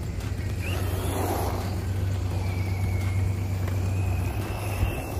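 Redcat Volcano EPX PRO RC monster truck running, its brushless electric motor giving a high, thin whine that rises slightly from about two seconds in, over a steady low hum.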